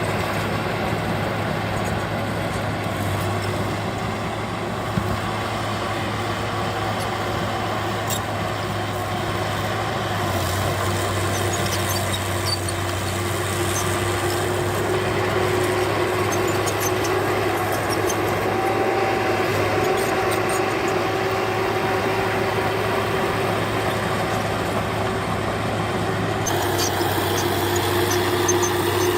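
Diesel engine of heavy earthmoving machinery running steadily, with a higher whine over it that grows stronger in the second half.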